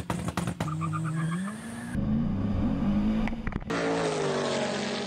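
Car engines accelerating hard in short drag-race clips, the pitch climbing as they launch, cut off abruptly about two seconds in and again near four seconds. The first clip opens with a few sharp cracks, and in the last the engine note falls away as the cars pull off.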